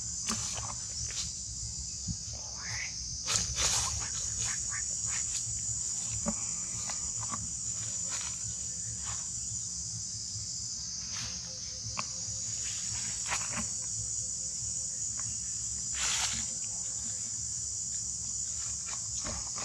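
Steady high-pitched drone of an insect chorus, with scattered short clicks over it.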